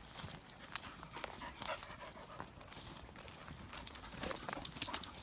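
Irregular footsteps and light clicks on a hard floor, busier near the end, over a steady high-pitched whine.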